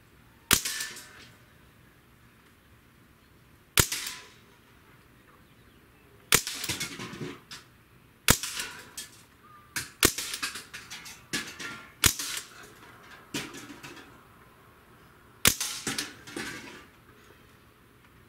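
Umarex Ruger 10/22 CO2-powered .177 air rifle firing about seven sharp shots a few seconds apart, with a short clatter after several of them as pellets hit tin cans.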